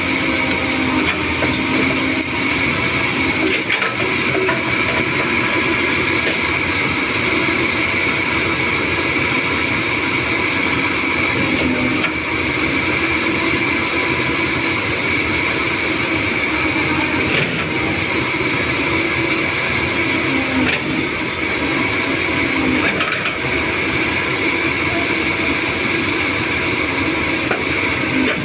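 Doosan 225 excavator running under load while loading, its diesel engine and hydraulics making a steady high whine with the engine note shifting as the controls are worked. Occasional sharp knocks and a few short hisses come through it.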